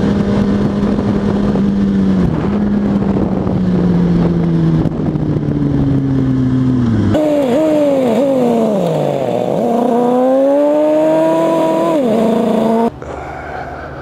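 2004 Kawasaki ZX-6R 636's inline-four engine running under a rider at road speed with wind rushing on the microphone, its pitch slowly falling. Past the middle the wind drops and the engine pitch falls and jumps back up several times as it slows through the gears, then rises steadily as it pulls away, before cutting off abruptly near the end.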